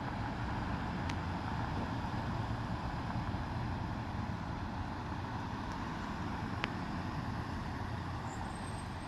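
Steady road vehicle noise, engines and tyres humming along a city street, with a faint click about six and a half seconds in.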